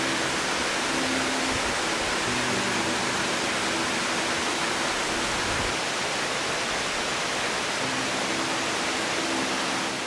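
A tall waterfall cascading down rock ledges: a steady, even rush of falling water, with soft background music underneath.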